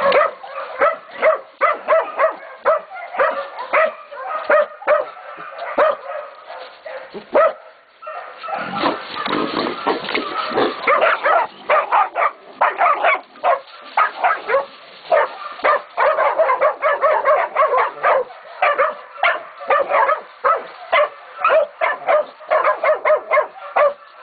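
A pack of young Catahoula and Black Mouth Cur pups barking in rapid, overlapping bursts as they bay a hog. The barking pauses briefly about a third of the way in, then comes back denser.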